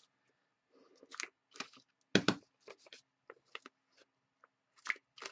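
Handheld plastic decorative corner punch cutting the corners of a paper envelope flap: small clicks and rustles as the paper is set in the punch, then two sharp crunching clunks as the handles are squeezed and the punch cuts, about two seconds in and near the end.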